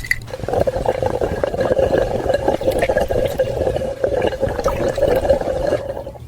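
Steady sound of running liquid, a watery rush with small crackles that stops abruptly near the end.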